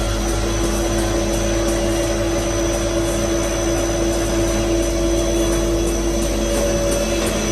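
Roll paper sheet cutter machine running steadily: a constant mechanical hum with an airy rushing noise, and faint regular ticks over it.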